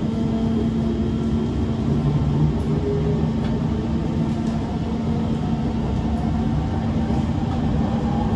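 Inside a Kawasaki C151 MRT train running out of a station onto the viaduct: a steady rumble of wheels on rail, with a steady low hum running through it.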